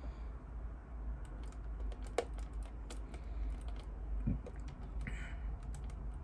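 Irregular small clicks and taps of hard plastic model-kit parts being handled and fitted together by hand, a few sharper knocks among them, over a low steady hum.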